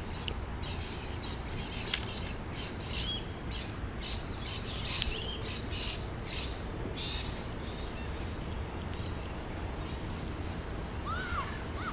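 Birds calling: a busy run of short, sharp, high chirps and squawks for the first several seconds, then a few short whistled notes near the end, over a low steady rumble of wind or water.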